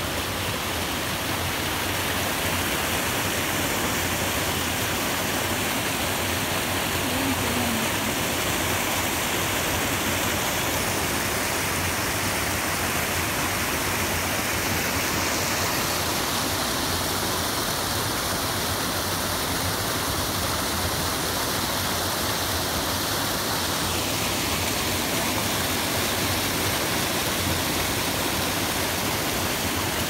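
A small, shallow creek running over rocks: a steady, even rush of water.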